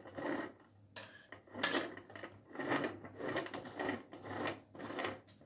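A metal icing spatula scraping and smoothing whipped cream over a cake on a plastic turntable, in a run of short scraping strokes about once a second.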